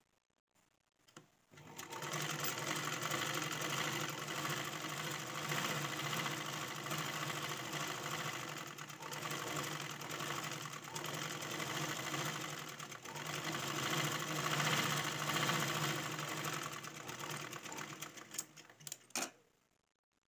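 Black domestic sewing machine stitching a seam through blouse fabric. After a few short clicks it starts about a second and a half in, runs steadily, and stops with a couple of clicks near the end.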